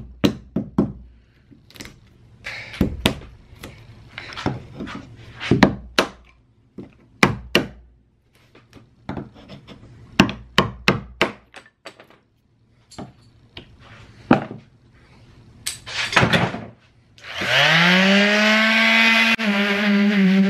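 Steel chisel scraping and chipping at hardened epoxy along a plywood seam, a long run of sharp ticks and scrapes. About seventeen seconds in, an electric palm sander switches on, its motor rising in pitch as it spins up and then running steadily, louder than the chiselling.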